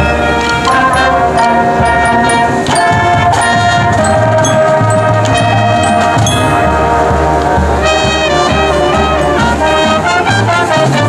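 High school marching band playing: the brass section holds full chords while the drums keep a steady beat underneath.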